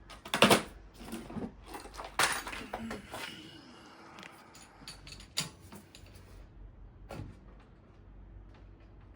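Metal tools and bike parts being handled while fitting a cassette: scattered knocks, clinks and rattles, loudest just after the start and again about two seconds in, growing sparser later.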